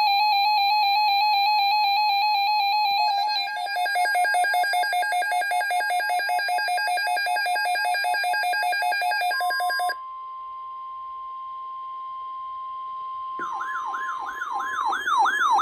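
A sequence of electronic weather-alert tones. First a loud warbling tone, then a rapidly pulsing beep from about three seconds in, then about ten seconds in a steady single tone, the NOAA Weather Radio 1050 Hz alert tone. Near the end, quick repeated falling siren-like sweeps sound over it.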